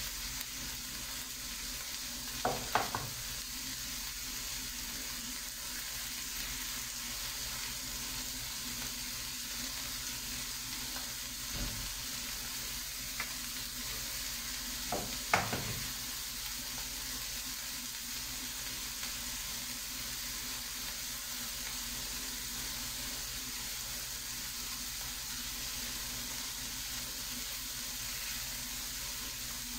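Sliced mushrooms and onion sizzling steadily in hot oil in a frying pan. Sharp knocks come about three seconds in and again about fifteen seconds in, as eggs are cracked against a bowl.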